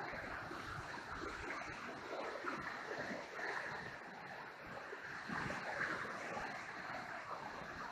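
The Niagara River's whitewater rapids rushing steadily.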